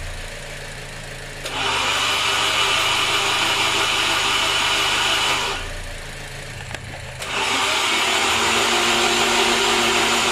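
Starter motor spinning a Honda D-series SOHC VTEC engine with its spark plugs out and ignition disabled, a steady whir, to prime the oil pump and filter before the first start. It cranks for about four seconds starting a second and a half in, stops briefly, and starts cranking again past the middle.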